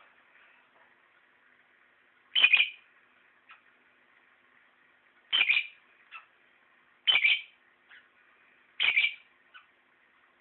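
Pet lovebird calling: four loud calls, each under half a second, spaced a second or two apart, with a few softer short chirps between them.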